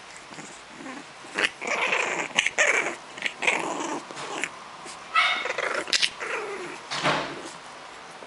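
French bulldog puppies play-fighting, growling and yipping in short irregular bursts from about a second and a half in, with a brief high cry around the middle.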